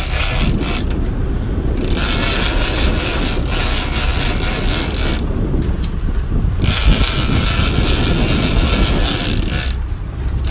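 Big-game trolling reel being cranked hard against a hooked fish, its gears grinding in long runs of winding that break off briefly three times, about a second in, about five seconds in and near the end. A steady low rumble runs underneath.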